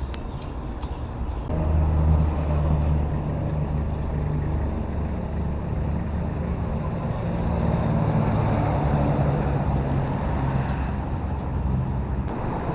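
Motorcycle engine running, becoming louder and steadier about a second and a half in as the bike gets under way, after a few sharp clicks at the start.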